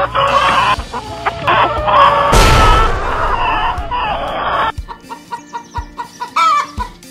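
A flock of hens clucking and calling, with a brief noisy rush about two and a half seconds in. From about five seconds in, the sound drops to a quieter run of short chirps, about four a second.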